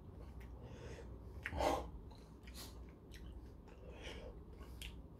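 A man chewing a mouthful of tomato with soft, wet mouth sounds and small clicks, and one short breath through the nose about a second and a half in.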